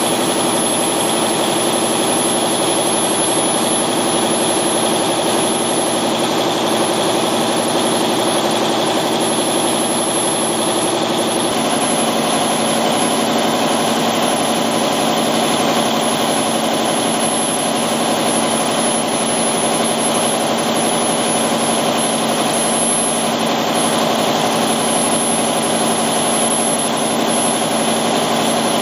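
30-litre 180-degree-bank V12 diesel railcar engine (550 PS, for a KiHa 183 series DMU) running on test, loud and steady, with a thin high whine above it. About eleven seconds in its note changes abruptly and becomes brighter.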